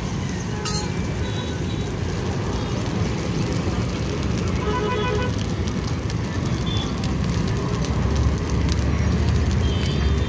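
Busy roadside traffic rumbling steadily, with a vehicle horn tooting briefly about five seconds in. A metal spatula clicks and scrapes on the iron griddle at the start.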